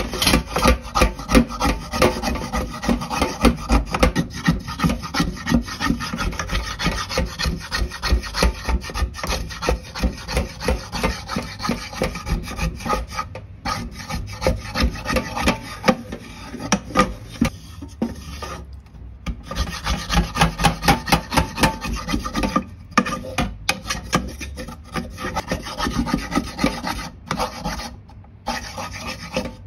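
Wooden slotted spatula scraping rapidly back and forth across the bottom of a burnt pan with liquid in it, working the burnt-on black residue loose. The strokes pause briefly a few times.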